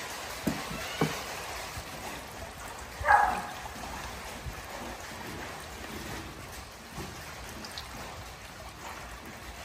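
Pool water trickling and lapping, with two soft knocks in the first second and a single short animal call about three seconds in.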